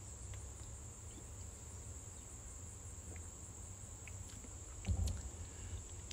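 Quiet background with a steady high-pitched whine and a low rumble, a few faint ticks, and a soft low knock about five seconds in.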